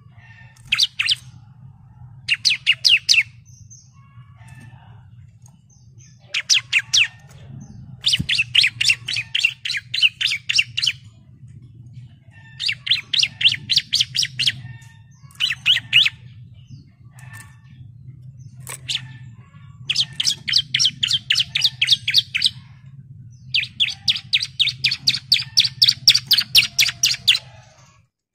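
Bar-winged prinia (ciblek) singing: repeated bursts of rapid, evenly spaced high notes, the longest running for about three seconds, with short pauses between. A steady low hum runs underneath.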